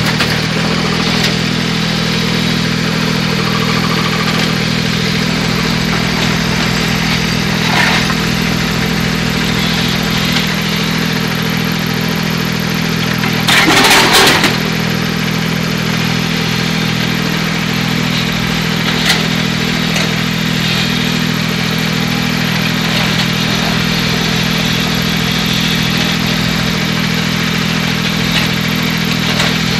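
Kubota U15-3 mini excavator's three-cylinder diesel running steadily while it digs, with a few short knocks from the bucket. About halfway through there is a loud burst of noise about a second long as the bucket unloads soil and stones into a steel mini dumper.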